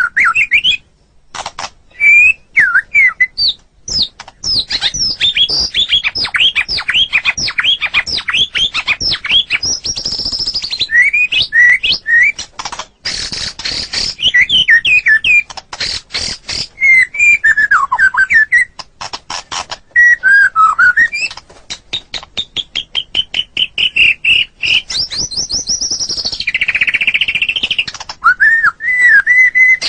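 White-rumped shama (murai batu) singing continuously: whistled phrases that rise and fall, broken by long runs of fast, sharp repeated notes like rapid clicking.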